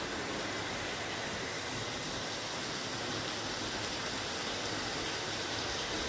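Steady rush of falling and running water from a waterfall, an even hiss with no breaks.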